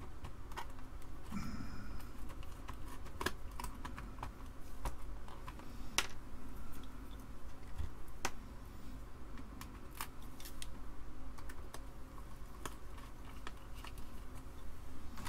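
Irregular clicks and light plastic clatter from an Amiga 2000 keyboard being handled and opened up, its keys and case knocking as it is moved.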